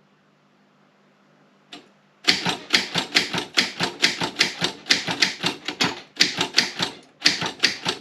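Optima M16 manual typewriter being typed on: after a short pause and a single keystroke, a fast, steady run of typebar strikes, about four to five a second, with one brief break near the end.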